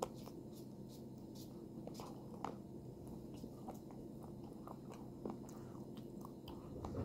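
Dark chocolate being chewed close to the microphone: irregular small crunches and wet mouth clicks, with a sharper click right at the start.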